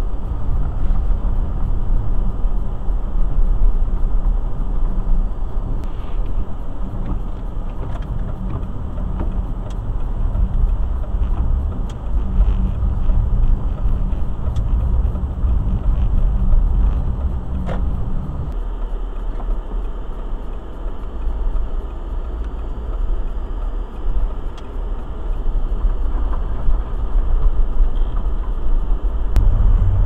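Car driving slowly on snowy streets, heard from inside the cabin: a steady low rumble of engine and tyres with a few faint clicks now and then. The rumble lessens about two-thirds of the way through and rises again near the end.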